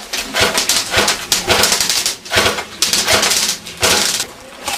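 Airsoft guns firing: a rapid, irregular run of sharp clacks and pops, several a second in places.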